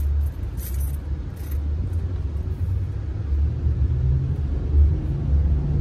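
Steady low rumble of a Honda minivan's engine and tyres heard from inside the cabin while driving.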